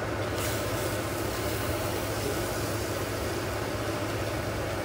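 Large stainless-steel pot of water at a rolling boil, a steady rushing bubbling noise with a steady low hum underneath.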